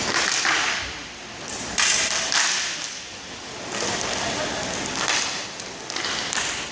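Inline hockey play on a plastic tile rink floor: skate wheels and sticks scraping across the surface in repeated hissing sweeps, with scattered sharp knocks of stick and puck.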